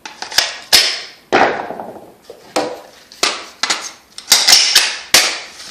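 Hard plastic cordless-drill batteries and tool bodies being handled, knocked together and set down on a hard surface: about a dozen irregular sharp clacks, each with a short ringing tail.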